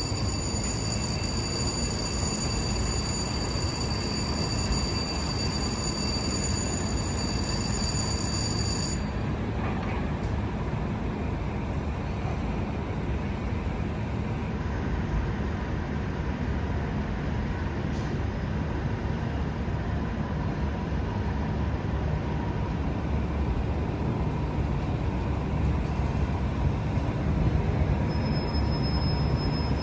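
Steady low rumble of idling engines and street traffic. It grows louder in the last few seconds as a fire engine's diesel engine pulls out of its bay. A faint high whine cuts off about nine seconds in.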